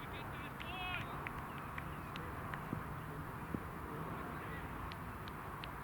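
Outdoor ambience with birds calling: a quick run of chattering calls in the first second, then scattered short high chips over a steady background of distant voices.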